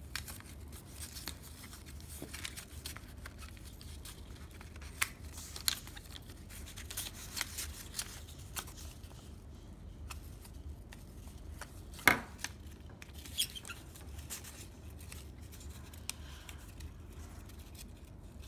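Construction-paper strips being handled, pressed together and glued with a glue stick: soft rustling with scattered light clicks and taps, the sharpest about twelve seconds in.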